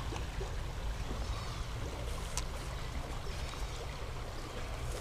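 Creek water running steadily, with a single sharp click about halfway through.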